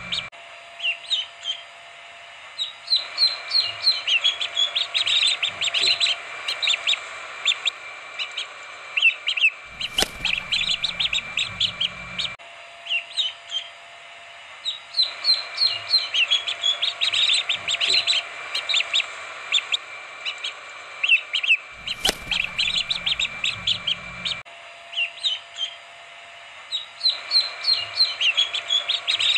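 A crowd of chicks peeping, many short high chirps overlapping without pause. The same stretch of peeping repeats about every twelve seconds, with a single click in it each time.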